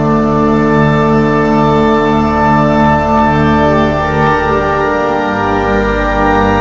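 Church organ playing slow, sustained chords. Near the end the chord changes and a deep bass note comes in.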